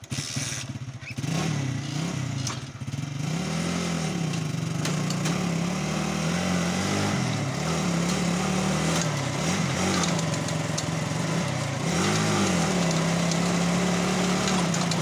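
Motorcycle rickshaw engine starting suddenly and running with its speed rising and falling over and over, going steadier and a little louder about twelve seconds in, as it is used to crank the Belarus tractor engine that drives a flour mill.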